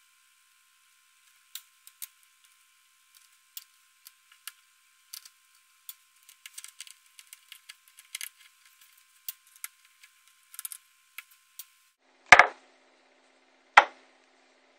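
Small sharp clicks and ticks of a precision screwdriver working out the tiny housing screws of a Samsung Galaxy i9003 phone, scattered and irregular, followed near the end by two louder knocks a little over a second apart.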